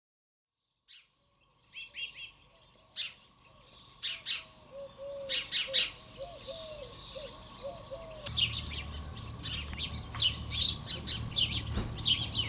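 Small songbirds, house sparrows among them, chirping in short, sharp, repeated chirps. The chirps start after a moment of silence. A low background rumble comes in about two-thirds of the way through.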